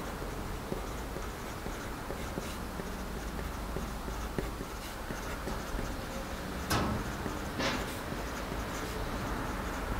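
Pen writing on paper: faint, scratchy strokes over a steady low hum. Two short, sharper sounds come a little under a second apart, about two thirds of the way through.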